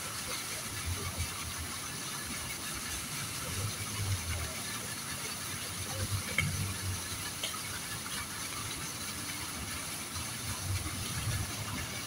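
Outdoor ambience: a steady hiss with soft low rumbles that come and go, and a few faint ticks.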